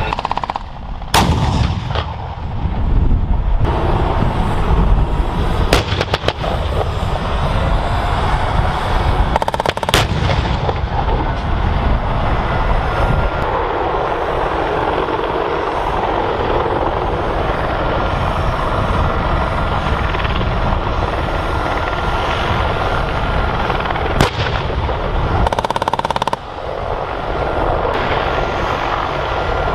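Gunfire on a live-fire range: a few sharp shots, one about a second in, a couple around six seconds, one near ten and one about twenty-four seconds in. They ring out over a continuous rumble from AH-64 Apache helicopters flying low overhead.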